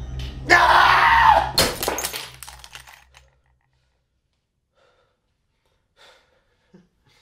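A man's anguished scream about a second long, followed at once by a loud crash that rings out briefly, over a low hum. After about three seconds there is near silence with a couple of faint small knocks.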